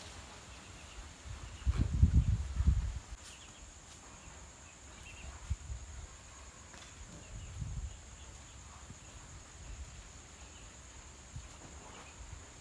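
A steady, high insect trill, night crickets, running under a loud low rumble about two seconds in and a smaller one near eight seconds.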